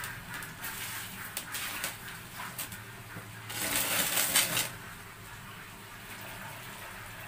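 Hands squeezing and mixing damp bran feed mash in a plastic basin, with small scattered crunching and patting noises. About three and a half seconds in there is a louder rush of noise lasting about a second, as water is poured from a plastic scoop onto the mash to wet it.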